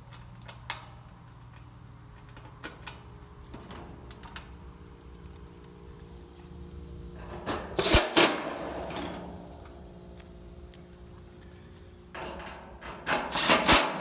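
Milwaukee FUEL brushless cordless driver spinning up twice to drive sheet-metal screws into an air-conditioner condenser's top panel, about halfway through and again near the end, with scattered clicks and knocks from handling the screws and panel.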